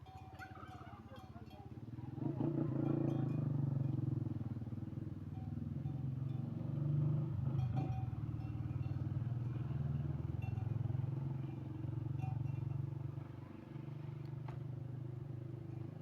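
A motor engine running steadily, building up over the first two seconds and then holding a low hum, with faint scattered clinks over it.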